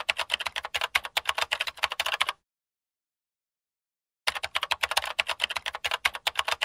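Typing sound effect: rapid, close-spaced key clicks in two runs, broken by about two seconds of dead silence in the middle.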